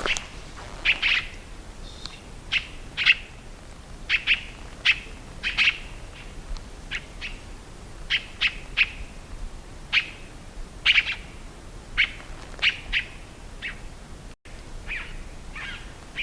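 Tiê-caburé calling: a long run of short, sharp chip notes, often in quick pairs, given at irregular intervals. The sound drops out for a split second near the end.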